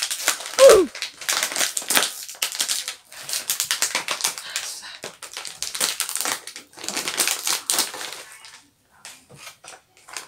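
Plastic crisp bag crinkling and crackling as it is twisted and pulled at, resisting being torn open. About half a second in comes a short falling vocal sound, the loudest moment.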